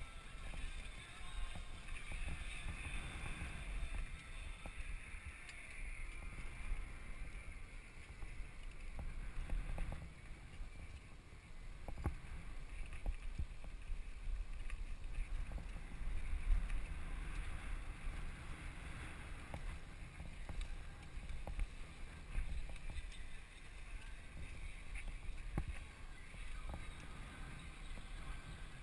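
Wind buffeting a helmet-mounted camera's microphone as a BMX bike rolls along a dirt track, with a steady low rumble and tyre hiss, and a few sharp knocks from the bike over bumps.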